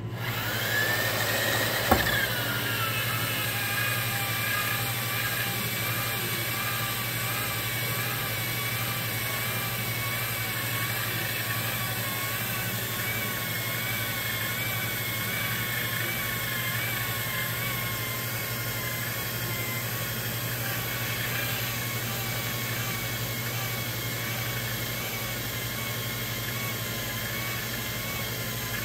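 Electric motor of a magnetic-base drill press starting up with a rising whine, then running steadily as it turns a mandrel grinding the steam seat of a locomotive branch pipe. There is one sharp knock about two seconds in.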